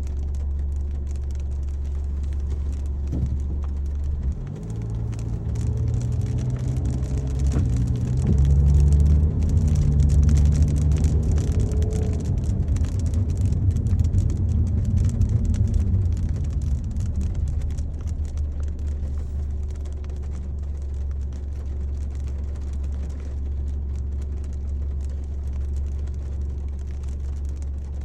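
Car interior while driving: a steady low road and engine rumble, which grows louder with a humming engine note from about four seconds in until about seventeen seconds, then settles back. Faint ticks of light rain run through it.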